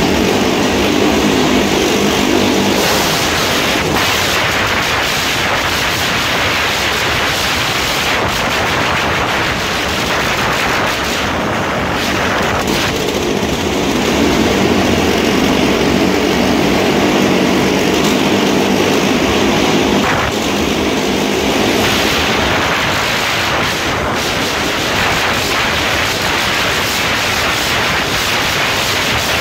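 Motorcycles racing round the vertical wall of a wall-of-death drum, their engines running loud and continuous, with the engine note shifting as they circle and a rapid crackle.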